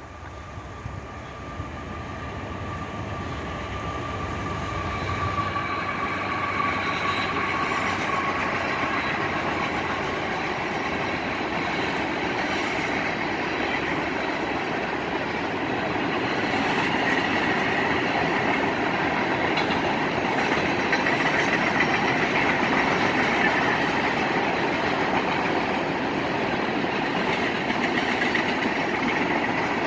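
Mixed freight train cars rolling past on the rails: a steady rumble and rattle of wheels that builds over the first few seconds and then holds. A thin high wheel squeal sounds through the first several seconds.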